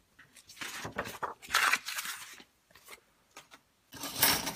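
A sheet of paper slid across a cutting mat and handled, giving soft rustles and scrapes in two short spells with a pause between.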